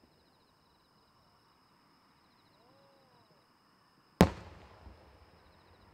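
One loud, sharp boom of a large aerial firework shell about four seconds in, echoing for about a second, with a smaller pop just after. Insects chirp faintly beforehand.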